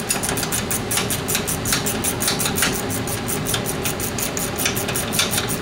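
Ratcheting wrench clicking rapidly, several clicks a second, as it backs out a 13 mm brake caliper bracket bolt.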